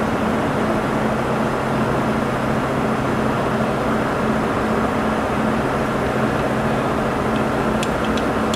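Steady electric machine hum of a large engine lathe under power, with a few light metallic clicks near the end as its tailstock handwheel is cranked.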